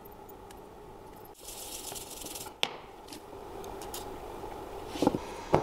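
An aerosol can of WD-40 sprays through its straw for about a second, followed by a sharp click. Two louder knocks come near the end.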